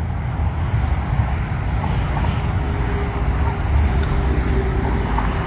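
Steady rumble of road traffic from a nearby motorway, with a faint steady hum joining about halfway through.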